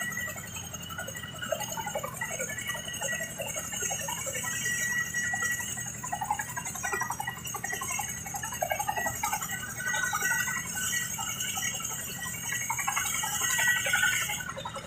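Boeing CH-47 Chinook twin-rotor helicopter running on the ground with its rotors turning: a steady noise from its turbine engines and blades, with a crowd shouting over it.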